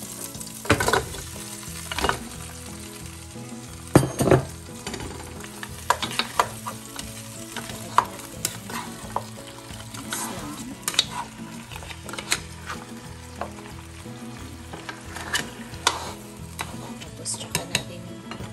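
Pressure-cooked beef back ribs being added to a pot of sautéing onion, garlic and tomato and stirred with a spatula: oil sizzling steadily under repeated knocks and scrapes, the loudest about one, two and four seconds in.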